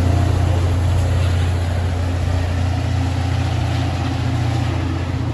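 Diesel locomotive engine running steadily, a low even hum with no change in pitch, over outdoor rumble and wind noise.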